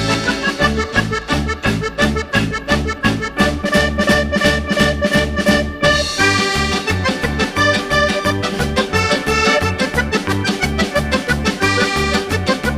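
Background music with a steady, regular bass beat under sustained melodic tones; the sound grows brighter about six seconds in.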